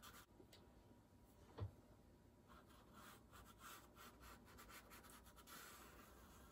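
Faint scratching of a pastel stick stroked quickly back and forth on paper, with a soft knock about one and a half seconds in.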